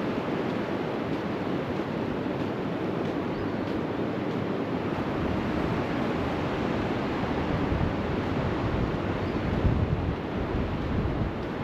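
Sea surf washing steadily onto a sandy beach, with wind buffeting the microphone in low gusts near the end.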